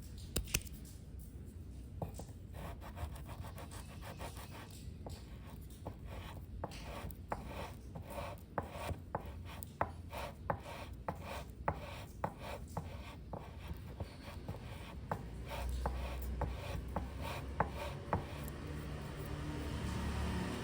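Sandpaper rubbing back and forth on the wood of a guitar's neck pocket in short, even strokes, roughly two a second. A low steady hum comes in toward the end.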